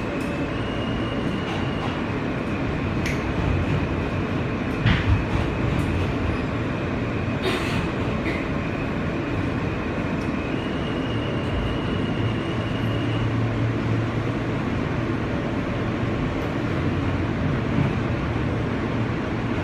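Inside a moving R160B subway car: steady running noise of the wheels on the rails, with a thin, steady high whine that shifts pitch a couple of times and a few sharp knocks in the first half.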